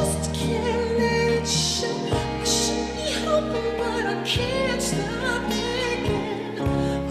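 Recorded music for the dance: a singing voice over held low bass notes that change every two seconds or so.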